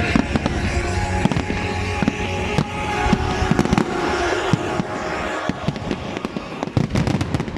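Fireworks going off in quick bangs and crackles that come thicker in the second half, with music playing underneath that fades away.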